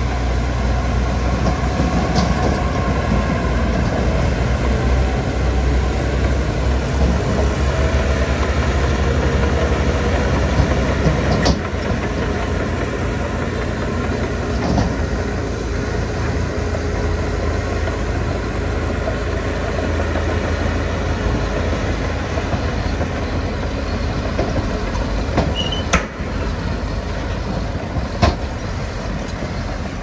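Crawler bulldozer's diesel engine working with a steady low rumble and a few sharp metal clanks. The rumble eases after about eleven seconds.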